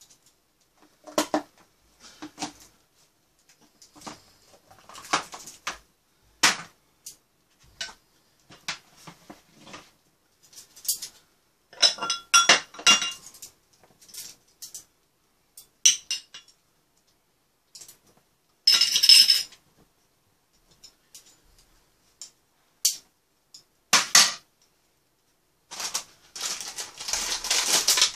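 Stainless-steel chopsticks and a spoon tapping and clinking against bowls and dishes: scattered light taps, with a few sharper ringing clinks about halfway through. Near the end there are a couple of seconds of crinkling as a packet is handled.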